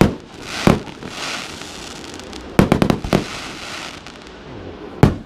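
Fireworks display: aerial shells bursting with sharp bangs, a crackling hiss between the first few. A quick run of about five bangs comes around the middle, and one last bang near the end.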